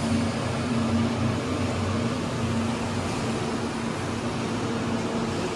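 Steady hum and fan noise from running cooling equipment, with a constant low tone and no break.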